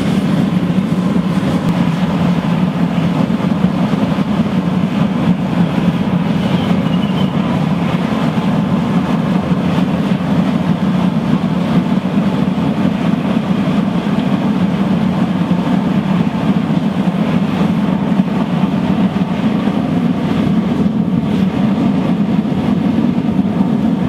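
Steady, loud rush of the air blower and flame of a blown-air, drip-style waste-oil burner firing into a 60-litre steel drum furnace, with a faint steady tone above it. The fire is catching and building on its first feed of oil.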